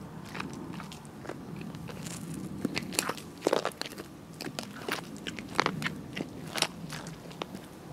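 Buffalo T 24400 boot soles treading on and grinding a pear into wet, gritty pavement. It is a string of irregular wet crunches and squishes, the strongest about a third of the way in.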